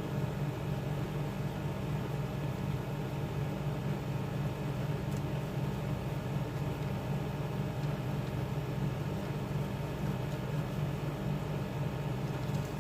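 Steady low background hum, even throughout with no distinct events.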